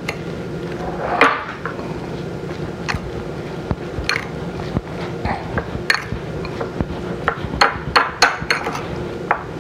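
A spoon clinking and scraping against a bowl while stirring shredded potatoes that are soaking up water. The light clinks come scattered at first and quicker near the end, over a steady low hum.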